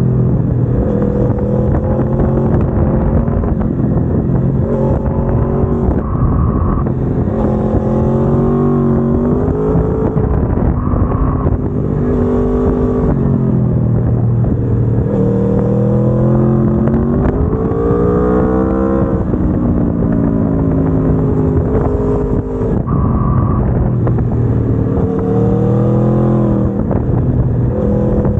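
Aprilia Tuono V4 1100 Factory's V4 engine running through its stock exhaust while ridden, heard from on board. The engine note rises in pitch as it pulls and drops back, over and over, as the bike accelerates and rolls off.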